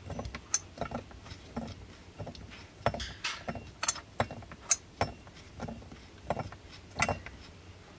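Irregular clicks and knocks of a chainsaw's plastic and metal parts being handled and turned by hand around the oil pump and drive sprocket, with a few sharper clacks.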